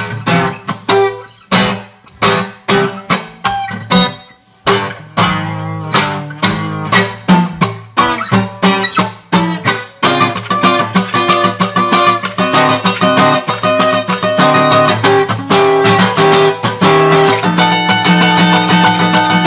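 Acoustic guitar being improvised on: separate sharp strummed chords with short pauses, turning about halfway through into fast, continuous strumming.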